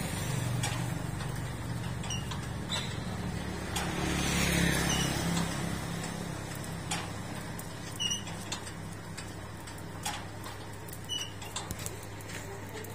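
A motor engine runs with a low hum that swells about four seconds in, then settles to a steady drone, while light clicks sound here and there.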